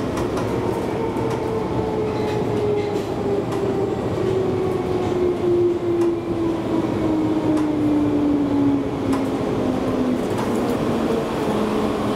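London Underground Bakerloo line train (1972 Stock) running, heard from inside the carriage: a steady rumble with a whine that slides slowly down in pitch over about ten seconds, then settles on a new lower tone near the end, with a few faint clicks from the track.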